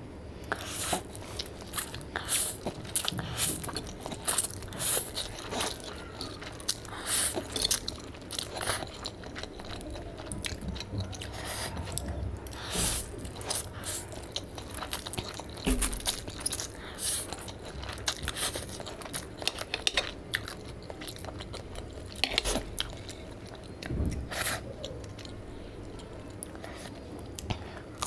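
Close-miked eating: chewing mouthfuls of spicy Korean instant noodles, with wet mouth clicks and smacks throughout. Near the end comes a bite into a fried bread pakora.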